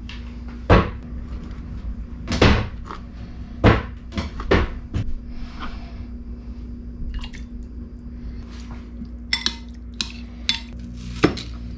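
A cleaver knocks on a plastic cutting board in a handful of separate strikes while fish is diced. Near the end a metal spoon clinks against a glass bowl as the diced fish is stirred. A steady low hum runs underneath.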